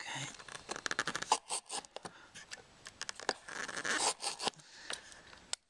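Stanley knife blade scoring through a plastic sill trim panel in quick, repeated short scraping strokes, cutting along a marked line between two drilled holes to free a slot.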